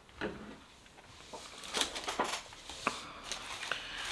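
Handling sounds on a table: a small perfume spray bottle set down with a light knock near the start, then a few scattered soft clicks and rustles as items are moved.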